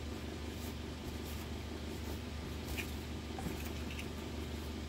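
Faint rubbing and a few light scratchy ticks of a plastic fan blade being wiped clean by hand, over a steady low hum.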